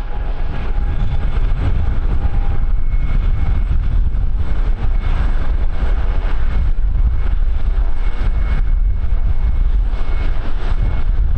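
Airliner engines running, heard through heavy wind buffeting on the microphone, with a faint steady whine above the rumble.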